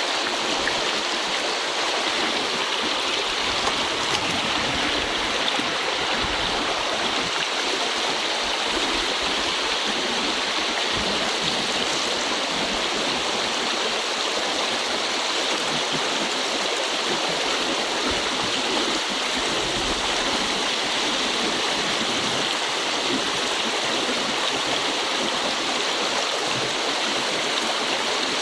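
Shallow river flowing over stones in a riffle: a steady, even rush of running water.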